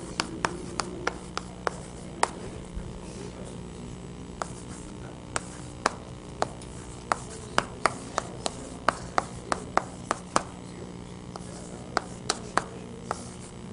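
Chalk writing on a chalkboard: irregular sharp taps and short scrapes as digits and commas are written, several a second, with a pause of about two seconds near the start and another shortly before the end. A steady low room hum lies underneath.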